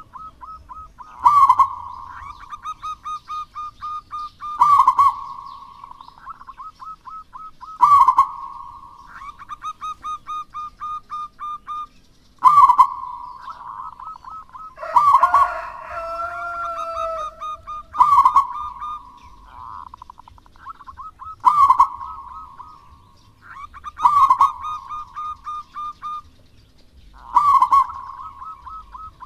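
Zebra dove (perkutut) singing: phrases repeat about every three seconds, each a loud opening coo followed by a fast run of short staccato coos. About halfway through, a different sliding call overlaps briefly.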